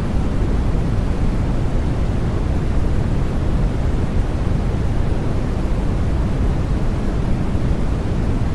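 Steady, unbroken synthetic sleep noise of the white-noise kind, weighted toward the bass so it sounds like a deep, even hiss and rumble rather than a bright hiss.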